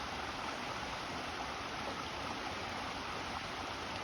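Waterfall and river water rushing in a steady, even hiss.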